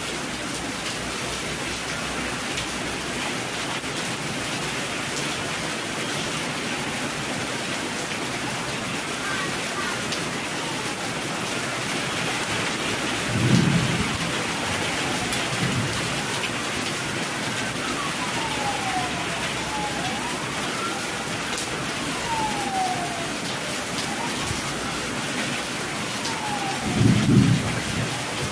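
Steady rain with two short rumbles of thunder, one about halfway through and one near the end. Through the middle a siren wails, its pitch sweeping down and up again and again behind the rain.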